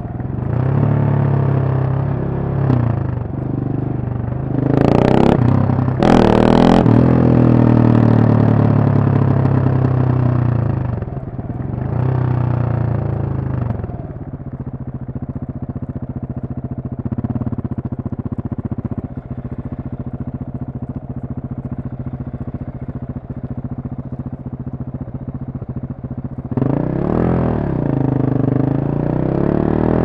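KTM 690 Supermoto's single-cylinder engine accelerating through the gears with revs rising and falling, and two short sharp cracks about five and six seconds in. It then settles to a steady low note for some twelve seconds before the revs climb again near the end as the bike pulls away.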